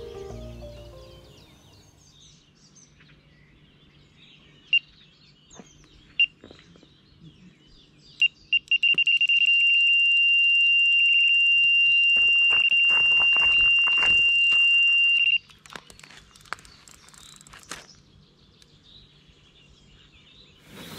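Electronic carp bite alarm going off: two single bleeps, then a quick burst of bleeps that runs into one continuous tone for about six seconds before it cuts off suddenly. This is a fish taking line, a run on the baited rod. Scattered clicks and knocks follow.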